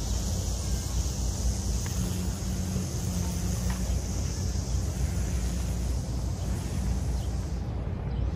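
Outdoor park ambience dominated by wind buffeting the microphone as a steady low rumble. A steady high hiss sets in and fades away shortly before the end.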